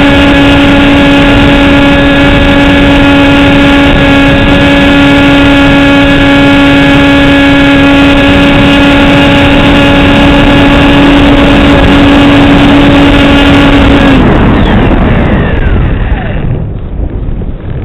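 Radio-controlled model aircraft's motor and propeller heard through its onboard camera: a loud, steady droning whine over wind rush. It cuts out about fourteen seconds in, a faint falling whine trails off as the propeller slows, and wind buffeting on the camera's microphone is left.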